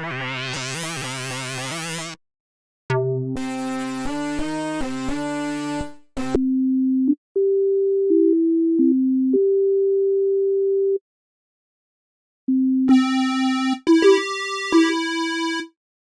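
Subtractor synthesizer patches played in short phrases with pauses between them. First comes a bright tone with a sweeping filter over low notes, then a few quick notes, then a pure, soft lead playing a slow melody of held notes, and near the end a brighter, buzzier tone.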